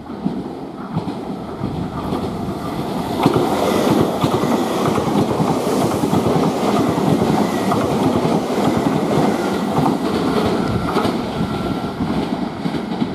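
Nankai electric commuter train passing close by, its wheels clattering over the rail joints; it grows louder about three seconds in as the cars run past.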